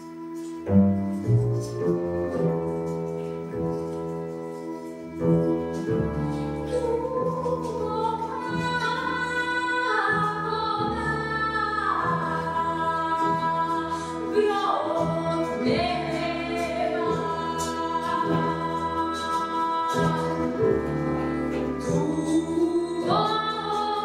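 A small acoustic folk band of violin, clarinet and double bass playing Serbian traditional-style music live. After a quiet start, a steady pulsing low bass line comes in about a second in, and later a woman's voice sings a wavering, sliding melody over the instruments.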